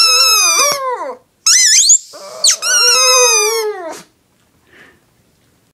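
A Shih Tzu howling along with a rubber squeaky toy being squeezed, in two long rounds, each sliding down in pitch at its end. The howling and squeaking stop about four seconds in.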